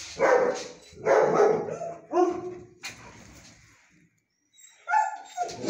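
Dog barking: three barks in the first two and a half seconds, a pause with one sharp click, then another bark near the end.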